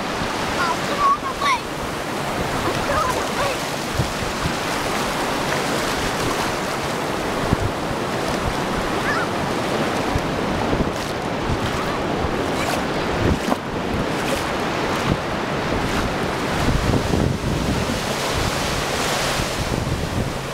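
Ocean surf washing up a shallow sandy beach, a steady rush of breaking and receding waves, with wind buffeting the microphone. A few short high-pitched cries come about a second in.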